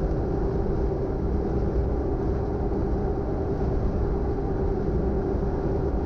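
A steady low mechanical rumble with a constant hum over it, unchanging throughout.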